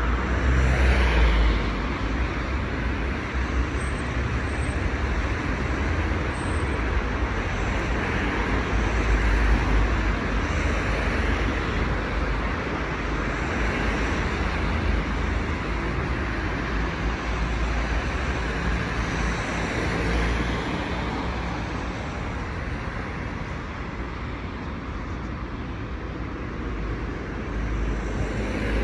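Steady city road traffic: passing cars with a constant low rumble.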